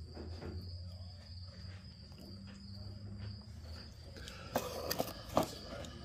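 A few sharp clicks and knocks from handling a cardboard box of red sway bar bushings, about two-thirds of the way through, over a steady high-pitched whine and a low hum.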